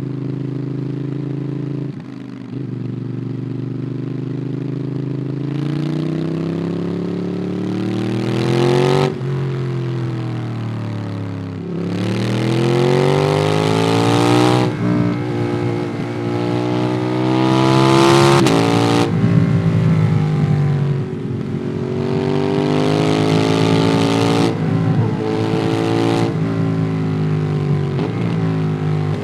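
Ducati Monster 821's L-twin engine through a QD Twin Gunshot exhaust, heard onboard from the rider's backpack. It holds steady at first, then pulls through repeated accelerations: the revs climb, drop abruptly at each gear change or throttle close, and climb again, about five times.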